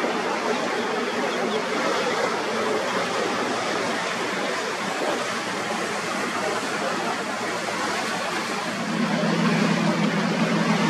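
Boats running through a choppy inlet: a steady rush of water, wash and wind. About nine seconds in, a deeper boat engine drone comes in and grows louder.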